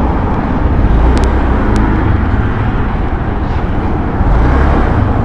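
Motorcycle engine running close to the microphone, a steady rumble that swells about a second in and again near the end as the bike moves off.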